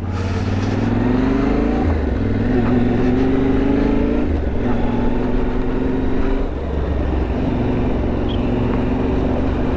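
Yamaha Ténéré 700's parallel-twin engine pulling under acceleration, its pitch rising and then dropping back at upshifts about two and four seconds in, then running at steadier revs.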